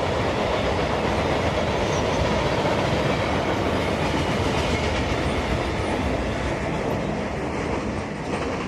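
Cars of a CSX work train rolling past steadily on the track.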